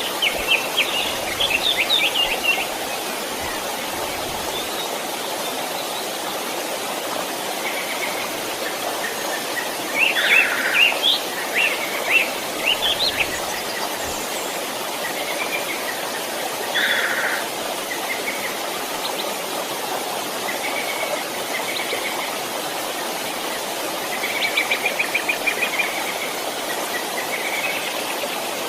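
A stream running steadily, with birds singing over it in short bursts of chirps and trills, several times.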